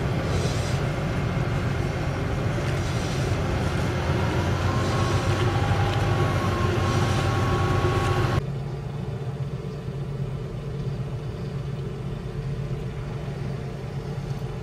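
Ships' diesel engines running with a steady low rumble while a small fuel tanker lies alongside a fishing vessel, with a faint thin whine over it toward the middle. About eight seconds in the sound cuts off suddenly to a quieter, more distant low hum.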